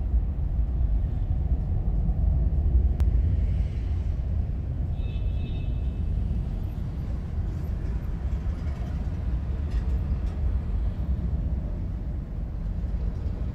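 Low rumble of a large aircraft's engines flying overhead, easing off slightly toward the end. A brief high-pitched tone sounds about five seconds in.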